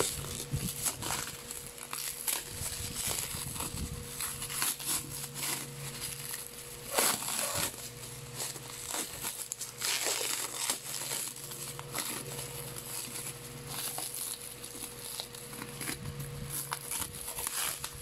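Thin clear plastic wrap and bubble wrap crinkling and crackling as hands peel the plastic off a squeeze tube of facial wash. The crackles come irregularly and are loudest about seven and ten seconds in.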